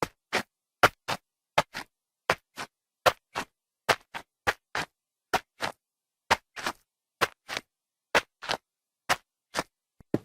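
Slow footsteps on a hard floor, each step a pair of sharp clicks (heel, then toe), about one step a second.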